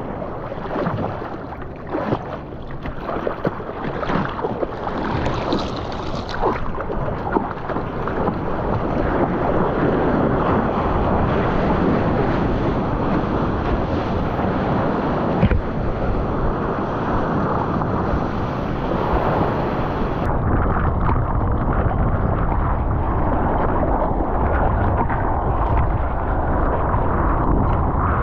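Sea water splashing and rushing around a surfboard, with wind on the microphone. Choppy splashes at first give way to a steadier rush, which turns suddenly duller about two-thirds of the way through.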